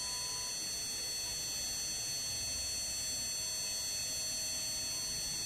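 CNC milling machine spindle running at high speed while a small engraving cutter mills the face of a metal piston die: a steady high-pitched whine of several tones over a low rumble.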